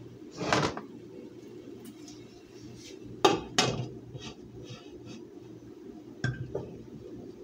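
Glass lid being set on a metal cooking pot: two sharp clanks a little over three seconds in, then two lighter clinks near the end as it settles. A short scraping rattle about half a second in, over a steady low hum.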